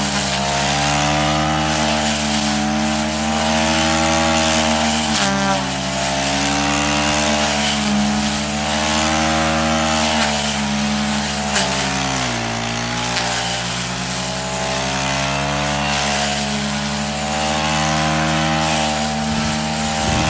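Petrol brush cutter fitted with a homemade disc blade cut from 1 mm steel, running steadily while mowing tall dry grass. The engine pitch sags under the load briefly about five seconds in and more deeply about twelve seconds in, then picks up again.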